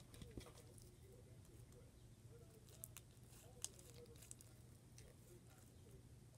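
Faint sticky clicking and squishing of slime being kneaded and stretched by hand, with a couple of slightly sharper clicks about three seconds in.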